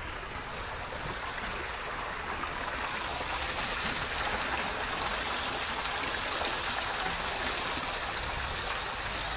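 Water pouring from above into a stone-lined well pool, a steady splashing that grows louder around the middle.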